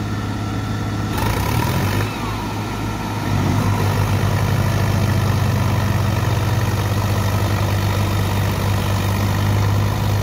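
Diesel tractor engine running steadily, growing louder about three seconds in as it works under load to pull a soil-loaded trolley stuck in mud.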